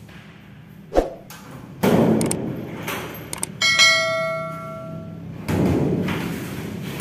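Toilet-partition doors with stucco-sheet panels being swung and closed: a sharp bang about a second in, then rattling and scraping of the doors and latch. A bell-like chime rings out from about three and a half seconds in for over a second.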